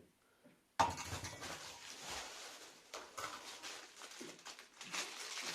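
Rustling and crinkling of packaging being rummaged through by hand while searching for small parts. It starts suddenly about a second in and goes on unevenly.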